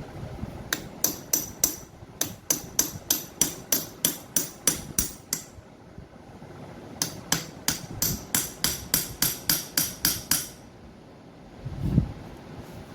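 Hammer striking metal in two steady runs of rapid blows, about three to four a second, each ringing brightly, on the parts of a CO2 semi-hermetic compressor being dismantled. A pause of about a second and a half separates the runs, and a single dull thud follows near the end.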